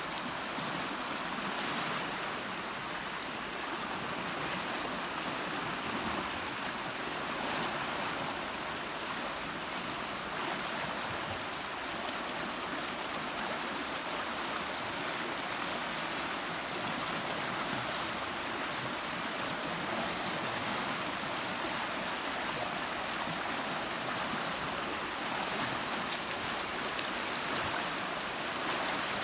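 Fast-flowing muddy water rushing over rapids in a channel, a steady, unbroken rush.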